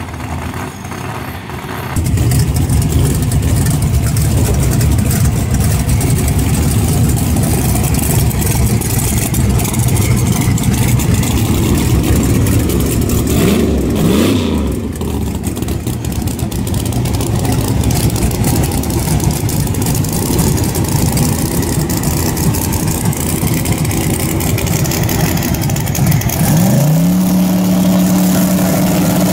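Twin-turbo Corvette drag car's engine running loud and rough in the staging lanes, with a brief rev about halfway through. Near the end it revs up and holds at a steady high pitch.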